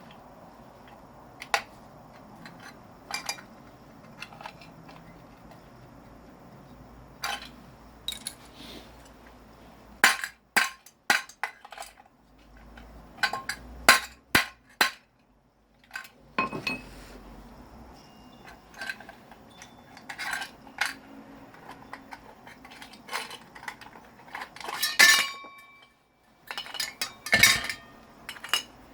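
Irregular clinks and knocks of metal parts being handled and set down while a scrap electric motor is taken apart by hand.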